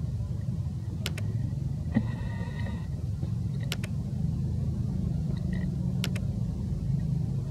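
Steady low rumble with three quick double clicks, about one, four and six seconds in: mouse-click sound effects of a like, follow and share button animation. A short high ringing tone sounds about two seconds in.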